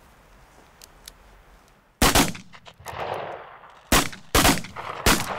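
About five pistol shots fired at a range. A quick pair comes about two seconds in, then three more over the next second and a half, each a sharp crack with a short echo trailing after it.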